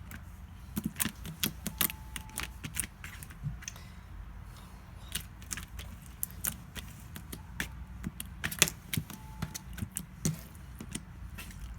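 Jiggly white-glue slime being squeezed and poked, giving off irregular small sharp pops and clicks, now in clusters, now spread out.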